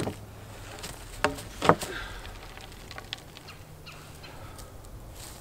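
A few sharp wooden knocks and thumps from handling a heavy 6x6 post in its hole, the loudest two close together about a second and a half in, with footsteps in dry leaves.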